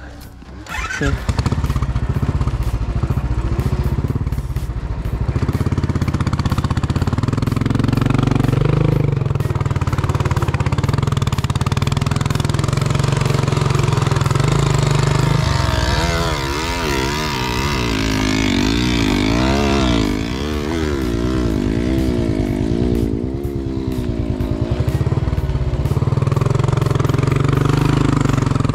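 Motorcycle engine running under load on a rough dirt trail, its note rising and falling with the throttle. It gets louder about a second in, and in the middle stretch the pitch wavers quickly up and down.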